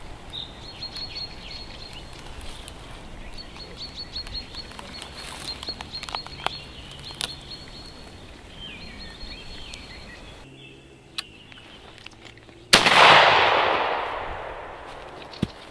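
A single shotgun shot about 13 seconds in: a sharp crack followed by a long echoing decay lasting about two seconds. Before it, faint high chirping over quiet background.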